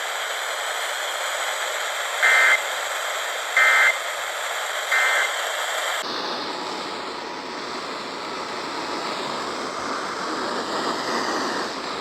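Emergency Alert System end-of-message data bursts over weather-radio hiss: three short, identical warbling digital tones about a second and a quarter apart, signalling the end of the warning. About six seconds in, the hiss changes abruptly to a fuller, lower static.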